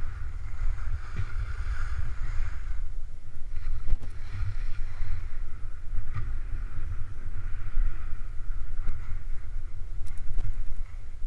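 Wind buffeting the microphone of a camera carried down a ski run at speed, with the hiss of edges scraping over packed snow that swells and fades through the turns.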